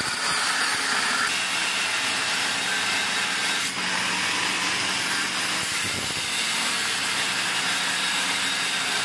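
Angle grinder with a thin cut-off disc cutting through ribbed steel rebar, a steady hissing grind of the disc biting into the metal.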